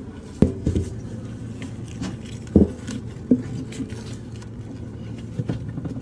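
A large honey bee colony humming steadily as it is disturbed, with a few sharp knocks and clicks from hands and tools working at the comb and wood, the loudest knocks about half a second in and about two and a half seconds in.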